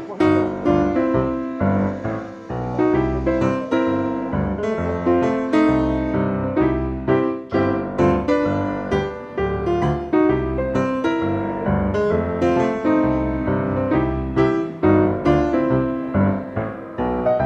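Background music: a keyboard tune played in a steady rhythm of struck notes over a bass line.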